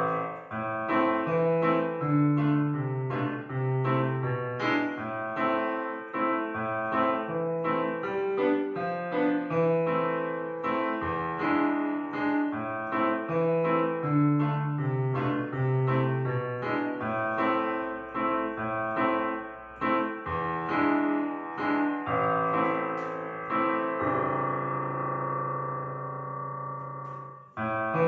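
Piano music: a continuous run of notes and chords. Near the end a chord is held and dies away, breaks off briefly, and a new phrase begins.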